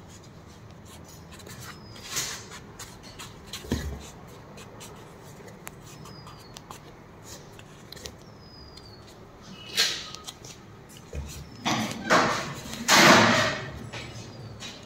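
Hands rubbing and pressing adhesive tape onto a fiberglass cast on a dog's leg: soft rustling and handling noises, with a few louder scraping bursts near the end.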